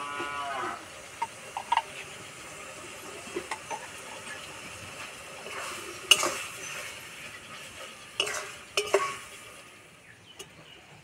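A cow moos briefly right at the start. Then a metal spatula stirs and scrapes a steel kadai while the food sizzles gently in ghee, with a sharp clank about six seconds in and a few more scrapes near nine seconds.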